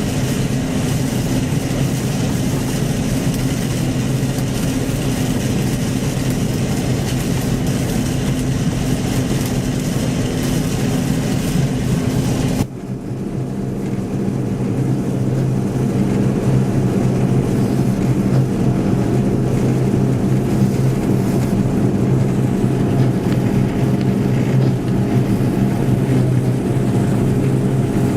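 John Deere 1075 combine harvester running steadily while combining barley, with a constant engine hum and the hiss of the threshing machinery. About halfway through, the sound changes abruptly to a deeper, steadier hum with much less hiss.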